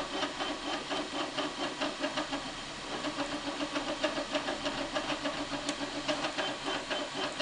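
Dremel 3D printer's stepper motors running in a quick, steady series of short pitched strokes as the print head lays down the top layers of the print, dipping a little in level partway through.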